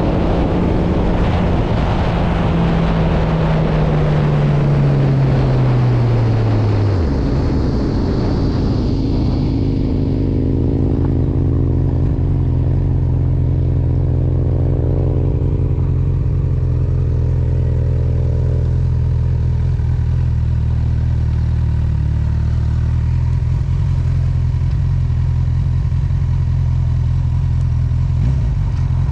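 Motorcycle engines. One is loud at first, its pitch falling steadily over the first seven seconds; then a motorcycle engine idles steadily close by for the rest.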